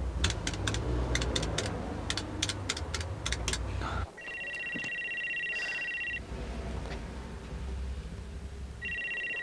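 Payphone keypad buttons clicking in quick succession as a number is dialled, then an electronic telephone ringer warbling: one ring of about two seconds, and a second ring starting near the end.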